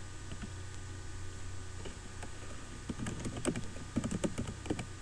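Keystrokes on a computer keyboard: a few scattered clicks, then quicker typing from about three seconds in, over a steady low hum.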